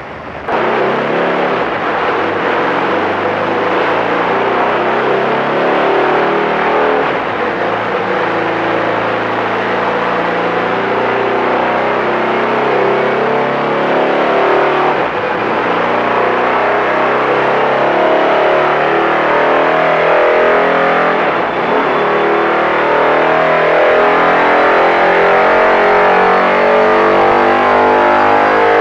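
Motorcycle engine running hard under load on an inertia dyno, spinning up the heavy dyno wheel. The engine note climbs gradually and grows louder, with brief dips about 7, 15 and 21 seconds in.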